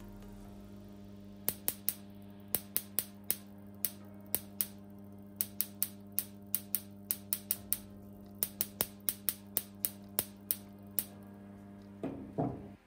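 Output spark gap of a home-built capacitor-diode voltage multiplier: sharp spark clicks jump across the small air gap at irregular intervals, a few a second, over a steady transformer hum. Near the end there is a brief louder clatter, and the hum then cuts off as the power goes off.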